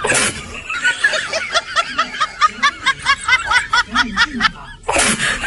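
High-pitched, rapid snickering laughter, a quick run of short rising 'heh' sounds at about four to five a second, with breathy hissing bursts at the start and near the end.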